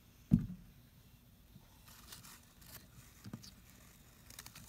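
One sharp low thump about a third of a second in, then faint crinkling, a softer thump and a few quick light clicks near the end: handling noises at a frog terrarium while feeding tweezers are worked in the tank.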